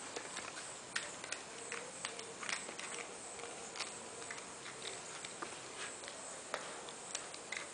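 Irregular light clicks and taps as a Belgian Shepherd Groenendael puppy bites and paws at a small plastic wind-up toy mouse on the floor.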